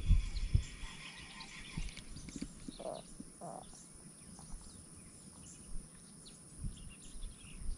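Quiet outdoor ambience with faint, scattered bird chirps and two short lower calls about three seconds in. A few low thumps sound in the first half-second.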